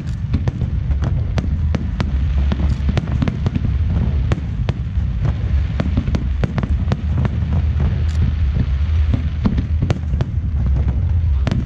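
Aerial fireworks shells bursting in quick succession: a continuous low rumble of booms with many sharp cracks on top.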